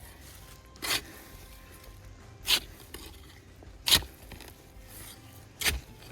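Four brief scrapes in garden soil, about one and a half seconds apart, as potatoes are dug up, with faint music underneath.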